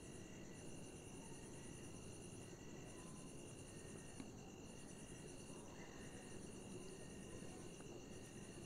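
Faint cricket trilling: a high pulsing chirp in repeated trains of one to two seconds with short breaks between them, over a faint low hiss.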